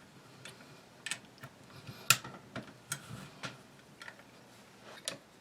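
Scattered sharp metal clicks and knocks from M+M M10X-Z rifle parts being handled and fitted together, as a pin is worked into place. About eight clicks at uneven intervals; the loudest comes about two seconds in.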